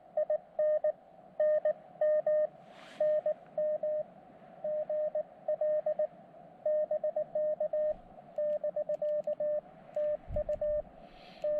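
Morse code from an Elecraft KX2 transceiver: a single steady tone of about 600 Hz keyed in quick dots and dashes, the characters of a CW contact exchange. A brief hiss comes about three seconds in.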